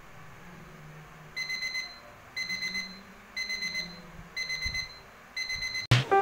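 Digital kitchen timer's alarm beeping: bursts of quick, high-pitched beeps, one burst about every second, five bursts in all. The sound signals that the timer's countdown has run out.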